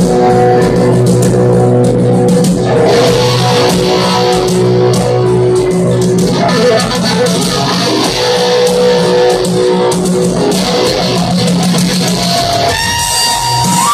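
Live rock band playing a slow ballad at full stadium volume: piano with electric guitar, bass and drums, recorded from the crowd. Near the end a high note slides up and holds.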